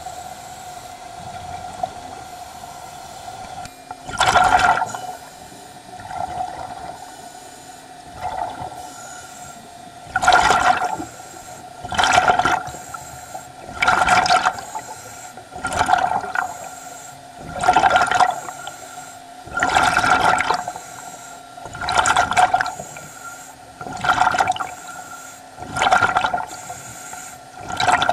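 Underwater scuba breathing: a diver's regulator and exhaled air bubbles make strong bursts of bubbling and hiss, repeating about every two seconds over a steady faint hum.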